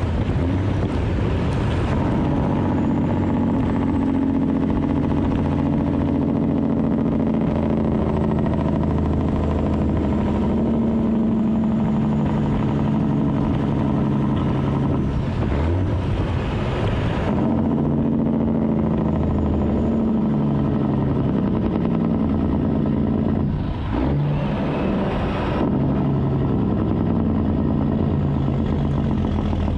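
Peterbilt semi-truck's diesel engine and exhaust stack running at highway speed, heard close to the stack from outside the cab, with wind and tyre hiss off the wet road. The engine note shifts a little past halfway and dips briefly later.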